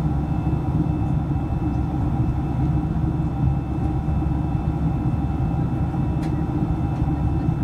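Steady cabin noise of a Boeing 737 in flight, heard from inside: a low rumble of its twin turbofan engines and the airflow, with a faint, steady whine above it.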